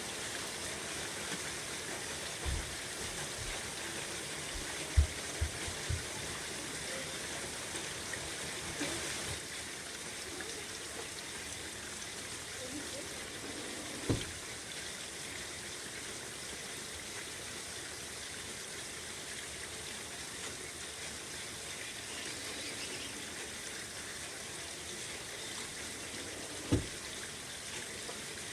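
Steady rain falling, an even hiss of drops. Low thumps from a screen door break through it: a cluster of four about two to six seconds in, one around fourteen seconds, and a last one near the end.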